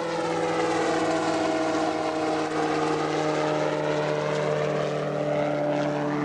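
Subaru engine and rotor of a homemade helicopter running at a steady speed, a continuous engine drone with the rotor's whir.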